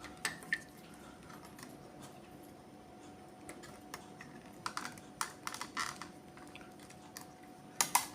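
Scattered light clicks and taps from handling the wired outlet and breaker test board, with quick clusters of clicks about five seconds in and louder ones near the end.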